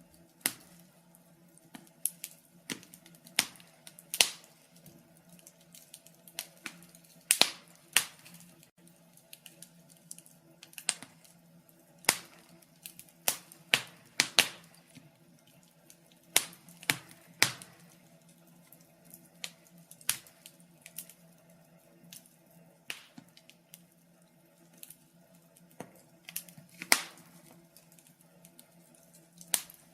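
Wood fire crackling: irregular sharp pops and snaps, some louder than others, over a faint steady low hum.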